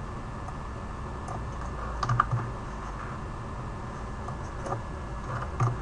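A few scattered computer keyboard keystrokes, with a small cluster about two seconds in and single taps near the end, over a low steady hum.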